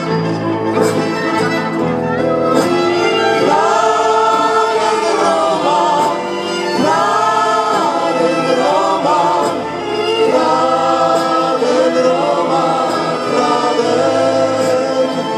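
Live band playing a song, with several men and women singing together into microphones over acoustic guitars and violin.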